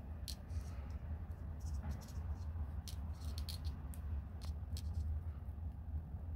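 Thin craft wire being wound by hand around a plastic marker barrel, giving faint, scattered small clicks and scrapes over a steady low hum.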